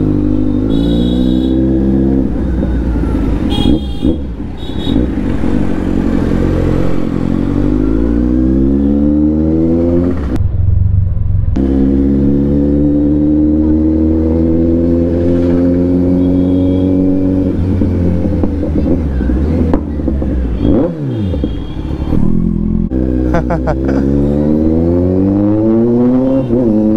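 Kawasaki Z900's inline-four with an aftermarket Arrow exhaust, ridden at low speed: the engine note climbs over several seconds, drops back, then climbs again, over and over as the throttle is opened and eased.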